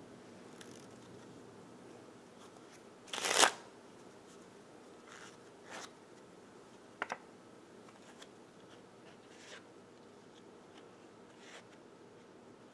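Deck of playing cards being handled: one short, loud burst of card noise about three seconds in, then a few soft card clicks and snaps.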